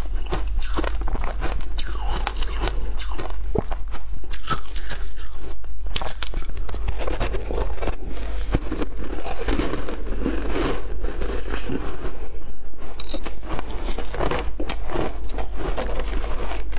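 Hard frozen ice balls being bitten and crunched between the teeth close to a lapel microphone: a dense, irregular run of sharp cracks and crunches as the ice breaks up during chewing.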